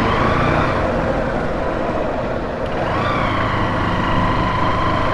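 Street traffic noise with a low engine hum underneath. A long, steady high-pitched tone like a horn or siren sounds briefly at the start and again from about three seconds in.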